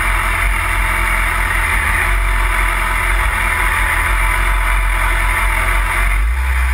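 BMW sport bike's engine running steadily at low revs as the bike rolls slowly, an even low drone with hiss over it.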